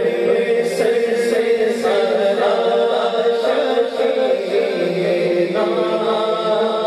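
Unaccompanied male voice singing a naat (devotional kalaam) into a microphone, with a steady held drone from backing voices underneath.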